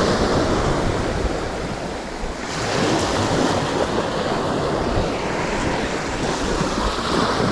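Sea waves washing in, with wind buffeting the microphone; the wash swells up again about two and a half seconds in.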